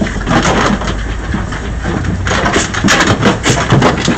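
Truck engine idling with a steady low hum under the pigs packed in the livestock trailer, which grunt and squeal in short rough bursts, more often in the second half.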